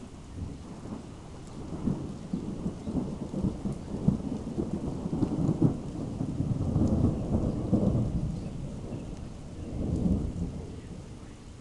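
Long rolling thunder: a deep rumble that builds over a few seconds, swells again near the end and then fades away.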